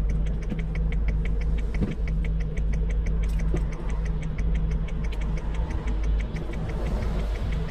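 An engine idling, heard from inside a vehicle cab: a steady low rumble with a rapid, even ticking of about six ticks a second over it.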